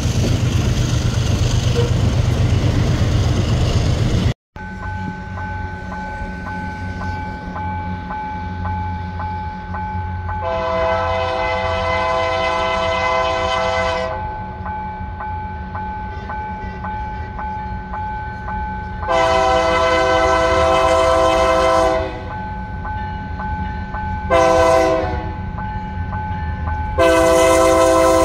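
Loaded grain hopper wagons rolling past close by, a loud steady rumble of wheels on rail. Then a GE ES44ACi diesel locomotive approaching sounds its horn for a level crossing: two long blasts, one short and one long, with a bell ringing steadily beneath.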